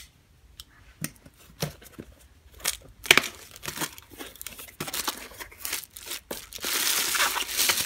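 A folding pocket knife snaps shut with a sharp click. Then the flaps of a small cardboard box are pulled open, with scattered scrapes and papery tearing. Near the end plastic bubble wrap crinkles steadily as it is handled.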